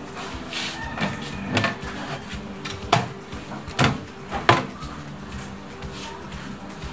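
Hard plastic knocks and clicks as white PVC vertical-tower planter sections are slotted and pressed onto one another: a handful of sharp strikes, the loudest about three to four and a half seconds in.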